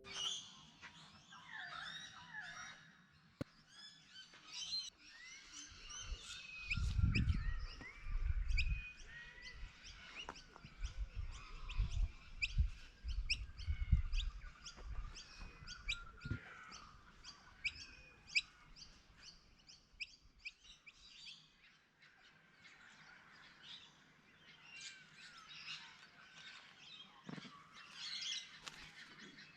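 Several wild birds calling and singing together: many short chirps, whistles and trills overlapping throughout. Low rumbles break in several times in the middle.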